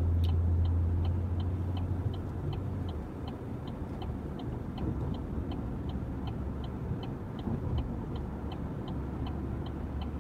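Car cabin noise while driving: a steady low rumble of engine and tyres, louder for the first three seconds or so. A faint high tick repeats about three times a second throughout.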